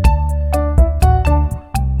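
Background music: a keyboard melody over bass and a steady beat.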